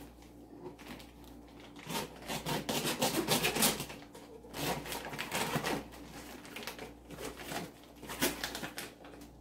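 Plastic mailer wrapping on a parcel crinkling and rustling as fingers pick and pull at it and its packing tape. The crackling comes in several spells, loudest about three seconds in.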